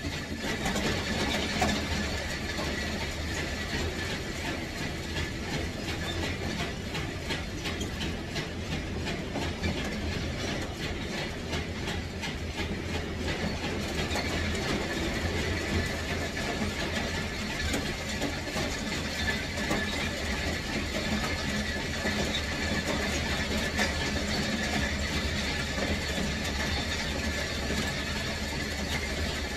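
Steady machine running noise with a low hum and a faint high whine.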